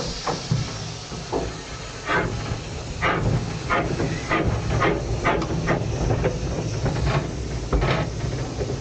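Terrier-class 0-6-0 tank steam locomotive starting away: steam hissing, then from about two seconds in a run of sharp exhaust chuffs, one or two a second, over a low rumble.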